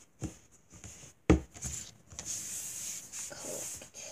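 A sharp knock on the board about a second in, then a stretch of rubbing and scraping as kinetic sand is swept across and off a smooth board.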